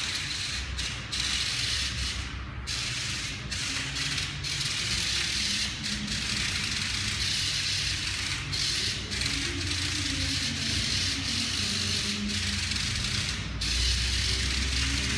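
A small robot car's geared motors whirring as it drives and turns, the gear whine cutting out briefly several times as it stops and starts.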